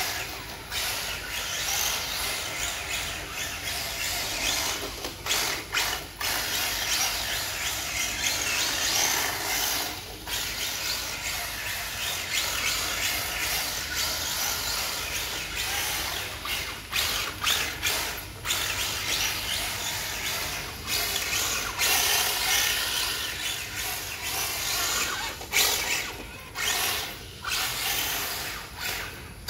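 Tamiya TT02 radio-controlled drift car running: its electric motor and gearbox whirring while the hard drift tyres slide and hiss on a smooth tile floor. The sound swells and breaks off many times as the throttle is worked through the drifts.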